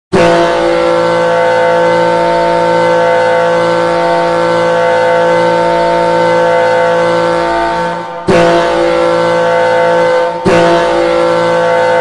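Hockey goal horn, the Seattle Kraken's horn, sounding one long loud blast of about eight seconds, then starting again twice, about two seconds apart.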